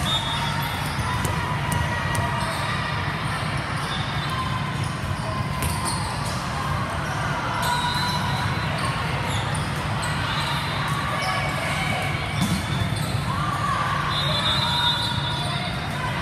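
Busy sports-hall din of a multi-court volleyball tournament: volleyballs being hit and bouncing on several courts, with background voices and a few short high tones, as from referee whistles, near the start and end.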